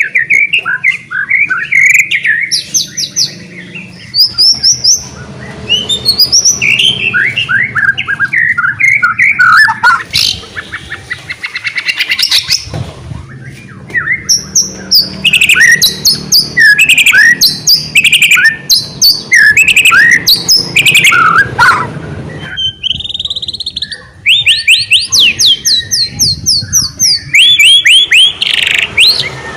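White-rumped shama in full, vigorous song: a fast, varied run of whistled phrases, quick up-and-down sweeps and trills, with two short lulls, one about twelve seconds in and one about twenty-three seconds in.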